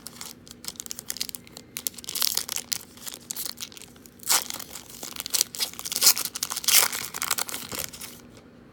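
Foil trading-card pack wrapper being torn open and crinkled by hand: a run of crackling rips and crinkles, loudest a little past halfway and again near the end, stopping shortly before the end.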